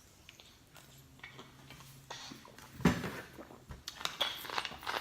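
Close-miked mouth and eating sounds: quiet clicks and smacks, with a short louder low sound about three seconds in, and a burp starting right at the end.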